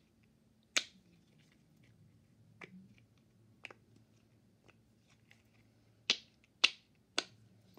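Mini silicone pop-it fidget toy, its stiff bubbles pressed one at a time, each giving a sharp pop: one loud pop about a second in, a few fainter ones in the middle, and three loud pops in quick succession near the end.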